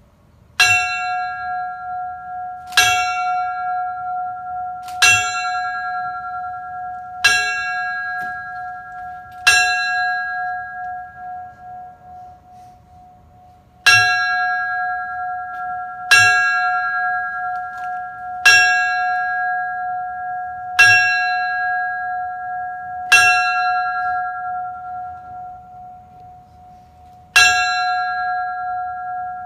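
A single fire bell struck slowly in sets of five, the strokes a little over two seconds apart, each one ringing on and fading, with a longer pause after each set of five. This is the 5-5-5 'last alarm' signal that marks a firefighter's death.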